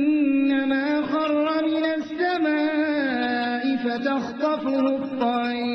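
A man reciting the Quran in melodic tajweed style, drawing the syllables out into long held notes that waver and step between pitches.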